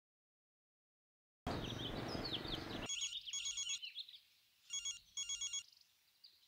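A mobile phone ringing with an electronic trill ringtone, starting about three seconds in: short trains of rapid beeps, repeated. Before it come a second and a half of silence, then faint outdoor ambience with small chirps.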